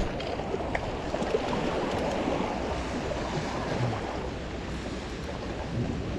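Small waves washing and splashing against the boulders of a rock jetty: a steady, even rush of water.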